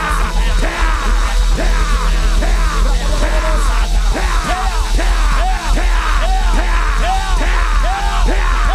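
A man praying loudly in tongues, shouting short rapid syllables about three a second, over background music.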